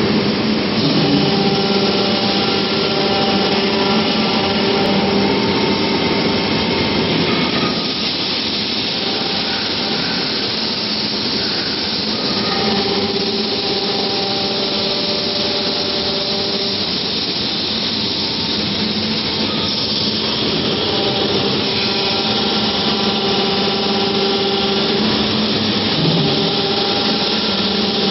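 Steady, loud industrial machine noise: a continuous rushing sound with a motor-like hum whose tones fade in and out every few seconds.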